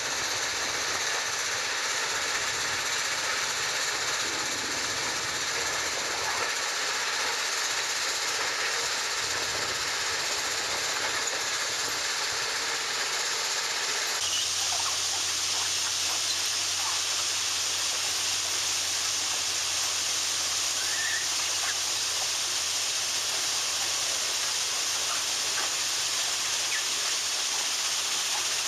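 Heavy railway track machinery running: a steady, loud mechanical noise with a strong hiss. About halfway through the sound changes abruptly to a brighter hiss with a steady low hum underneath.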